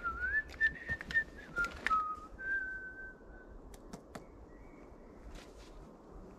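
A man whistling a short idle tune in a few held notes, with several light knocks of his hand against a birch trunk, the last ones about four seconds in.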